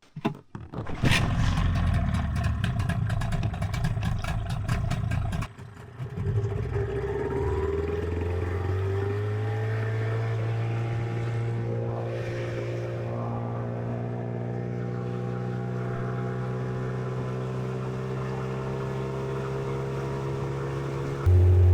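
Boat motor starting about a second in and running fast and rough, then dropping back and rising in pitch as it picks up speed into a steady run; it gets louder again near the end.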